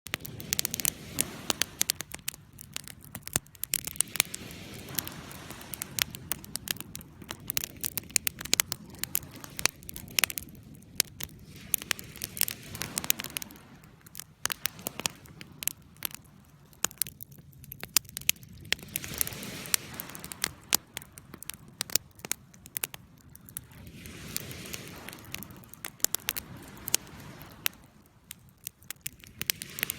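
Campfire burning, wood crackling and popping in many sharp, irregular snaps over a low, shifting rush of flame.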